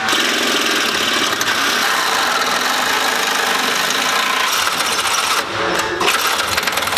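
Handheld cordless power tool running steadily against the car's front-end metal, with a short let-up about five and a half seconds in.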